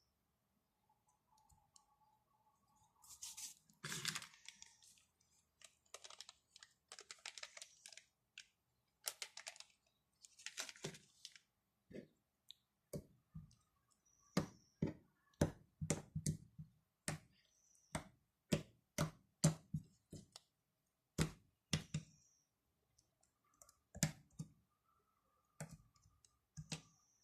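Slime being squished and poked by hand, making faint sticky crackles and then a run of irregular sharp clicks and pops.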